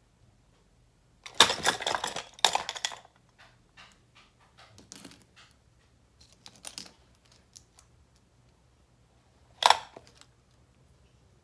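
Eyebrow pencil being sharpened in a small handheld sharpener: a run of scratchy rasping strokes, then scattered small clicks and rustles of handling. A short sharp clatter near the end.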